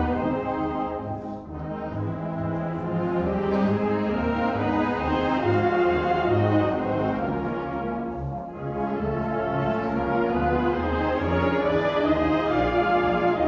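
High school honor concert band playing sustained full chords, brass to the fore, with two short breaks between phrases, about a second and a half in and about eight and a half seconds in.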